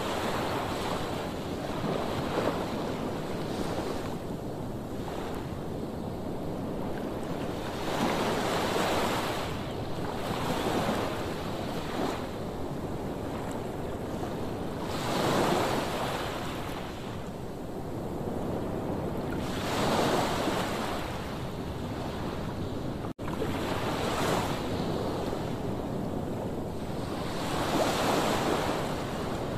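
Sea waves washing onto the shore, swelling and falling back every few seconds, with wind on the microphone.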